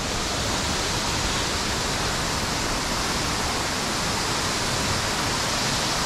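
Waterfall rushing steadily: an even, unchanging wash of falling water.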